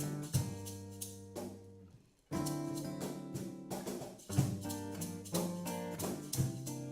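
Music with plucked guitar and drums. It fades out just before two seconds in, then starts again sharply a moment later.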